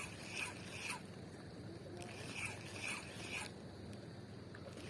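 Spinning fishing reel being cranked to work a micro jig back in, faint short zipping strokes about twice a second.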